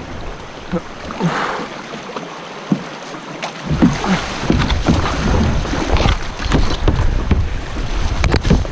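River rapid rushing past a kayak, with paddle splashes. About four seconds in it gets louder and busier: frequent splashes and knocks over a low rumble.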